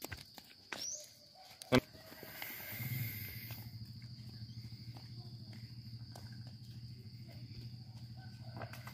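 A steady high insect whine over light taps. A single sharp knock comes a little under two seconds in, and a steady low hum follows from about two and a half seconds on.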